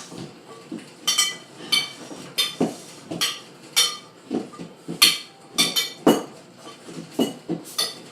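Spoon clinking against a bowl again and again as slime is stirred and worked, a dozen or so sharp ringing clinks at about one or two a second.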